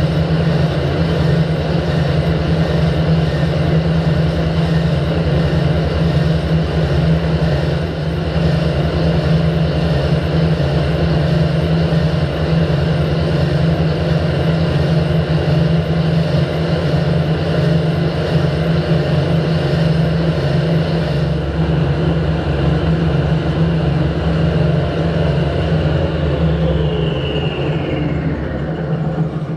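Harrison lathe running with a steady motor and gearbox hum as it turns a locomotive cylinder in a four-jaw chuck, taking a thin facing skim off the cylinder's end. Near the end it is switched off and the spindle winds down with a falling whine.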